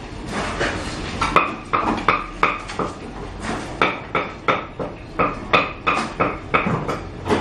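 A metal kitchen utensil strikes cookware again and again. The clinks start about a second in and come at about three a second, each with a short ring.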